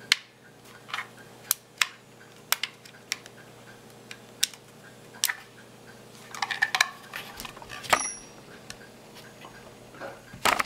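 Steel parts of a Smith & Wesson 4506 pistol clicking and clinking as the slide is worked back onto the frame, with scattered single clicks, a busier run of small knocks past the middle, and one sharp click about eight seconds in.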